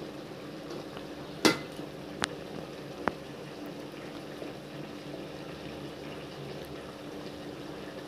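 Spinach, potato and moong dal curry simmering in a kadai, bubbling steadily as the water released by the spinach cooks off. In the first few seconds a spatula knocks against the pan three times, the first knock the loudest.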